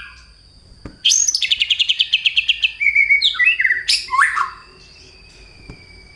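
Male white-rumped shama singing a fast run of repeated chattering notes, about a second in, then a few short varied phrases that stop about four and a half seconds in. The chatter is its mimicry of fighting house sparrows.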